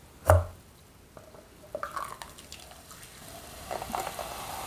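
A single thump near the start. It is followed by a few small clicks. Then, from about three seconds in, sparkling mineral water is poured from a plastic bottle into a paper cup, splashing and fizzing as the cup fills.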